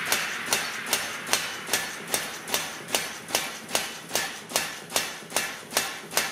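Blacker B power hammer striking in a steady rhythm, about two and a half blows a second, drawing a taper on 40 mm solid square steel.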